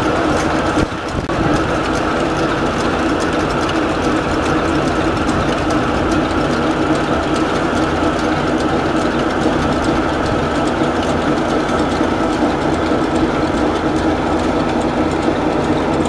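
Threshing machine belt-driven by a steam traction engine, running steadily: a continuous mechanical clatter over a steady hum.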